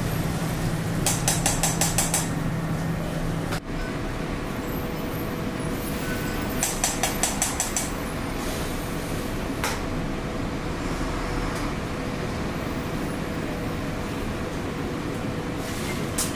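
A metal mesh strainer knocked against steel in two quick runs of about six or seven taps, knocking broth through the mesh, over a steady rush of kitchen noise.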